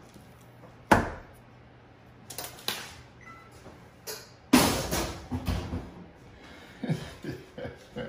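Metal muffin pan set down on a kitchen counter with a sharp clank about a second in, followed by smaller knocks, then a louder bang and rattle about halfway through, and a few light knocks of handling near the end.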